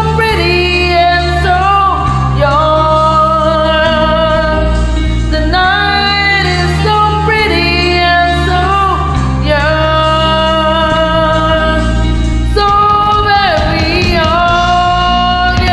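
A woman singing karaoke, holding long notes in phrases that slide up and down in pitch, over a loud backing track.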